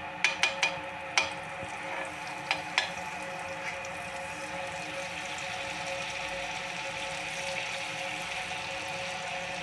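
Butter sizzling as it melts in a hot frying pan, with a few clicks of a steel spoon against the pan in the first three seconds.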